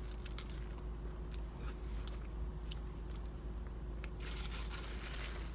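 Someone biting into and chewing a vegetarian wrap with lettuce, with soft crunches and small wet mouth clicks. The crunching grows louder and denser about four seconds in, lasting about a second.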